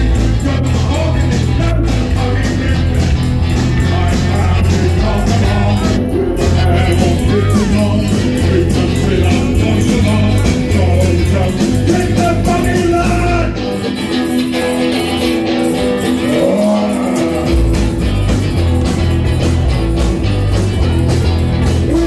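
Live rock band playing loud: a male lead vocal sung over bass guitar, drums and tambourine. About two-thirds through, the bass and drums drop out for a few seconds, then the full band comes back in.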